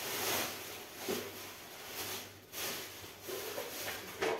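Plastic shopping bag rustling and crinkling in irregular spurts as groceries are taken out of it and handled.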